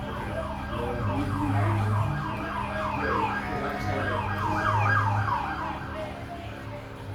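Background music with a deep bass note that comes and goes every few seconds, overlaid by a rapid yelping siren sound of about three quick wails a second that fades out about six seconds in.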